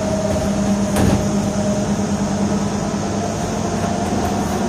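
Bus engine drone and road noise heard from inside the cabin, a steady hum with one sharp click about a second in.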